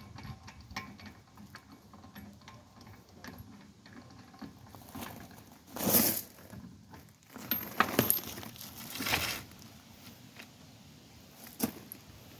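Metal clinking and rattling of hand tools and brake parts being handled during brake reassembly. Scattered light clicks, with louder clanks about six and eight seconds in, a longer scrape just after nine seconds, and one more sharp clank near the end.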